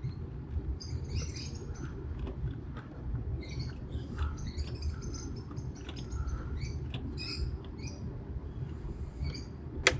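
Parakeets chirping in the background as a steady string of short, high calls, over a low steady rumble, with one sharp click near the end.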